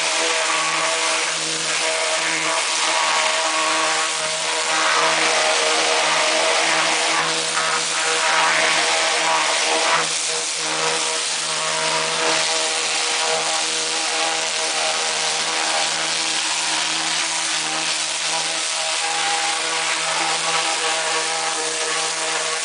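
High-pressure washer running steadily, a constant hum under the loud hiss of its water jet blasting barnacles and marine growth off a boat's sterndrive and propeller.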